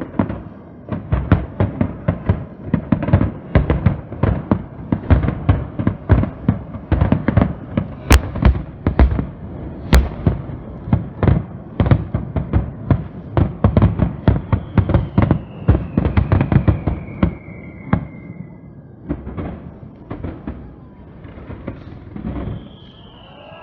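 Fireworks display: a rapid barrage of booms and bangs, several a second, thinning out after about nineteen seconds. A falling whistle comes in about fifteen seconds in, and another starts near the end.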